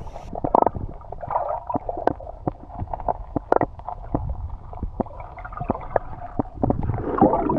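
Sea water sloshing and gurgling, with a low rumble and many small irregular clicks and knocks.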